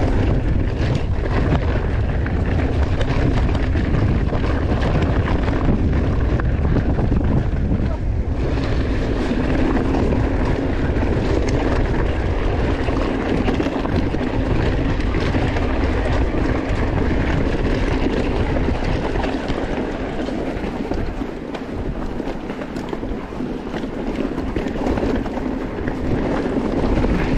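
Wind rushing over the microphone of a camera on a moving mountain bike, with trail and bike noise underneath; the level dips briefly about two-thirds of the way through.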